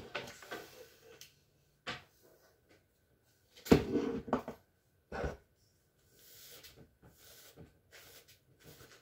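Hair tools knocked and set down on a hard bathroom counter: a few clunks, the loudest cluster about four seconds in and another a second later, then soft rustling as hair is combed and handled.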